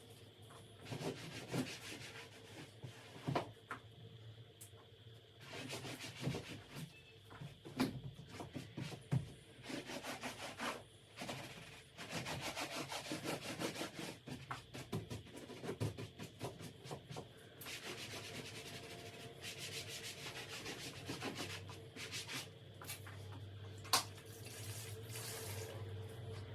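A cleaning cloth rubbed back and forth over a surface in irregular runs of wiping strokes, with a sharp click near the end.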